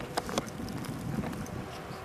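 Wind buffeting the microphone in an irregular low rumble, with two sharp clicks near the start.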